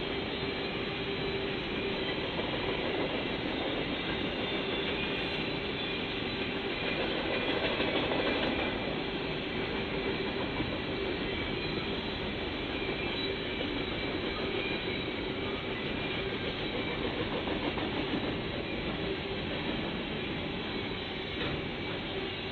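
Freight cars of a CSX train rolling past: a steady rumble and clatter of steel wheels on the rails, with a thin steady squeal from the wheels.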